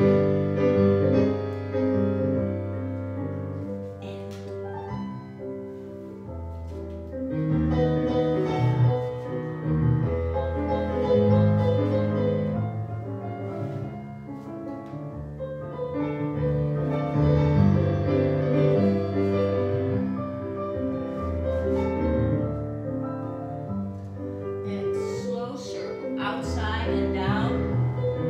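Solo piano playing a ballet barre accompaniment, coming in at once and carrying on as a steady flow of chords and melody.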